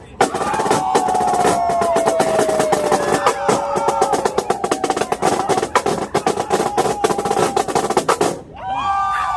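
Marching drumline playing a fast, dense pattern of snare and drum strokes that stops abruptly near the end, with voices over the drumming.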